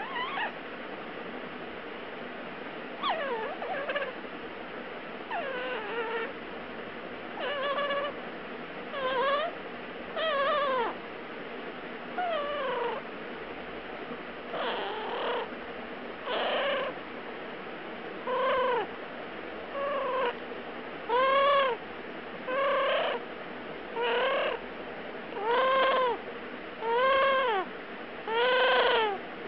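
A drowsy pet parrot repeatedly whining, crying as it falls asleep. There is roughly one short call every second and a half, each rising then falling in pitch, and the calls grow louder toward the end.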